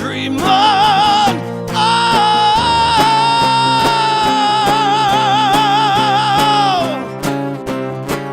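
Rock band playing live, the singer holding one long high note with vibrato for about five seconds, falling away near the end, over guitar and bass.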